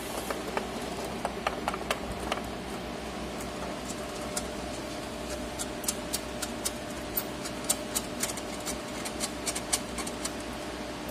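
Steady mechanical hum carrying a few steady tones, with scattered light clicks and taps as parts inside the Citronix 3300 inkjet printer cabinet are handled. The clicks grow more frequent in the second half.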